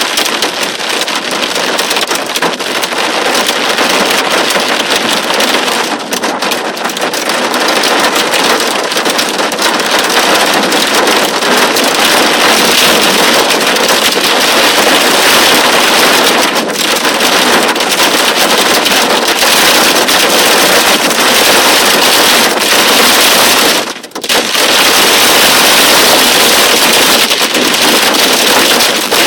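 Torrential rain pouring on a car as it drives, a loud dense hiss of rain and tyre spray that drops away for a moment about three-quarters of the way through.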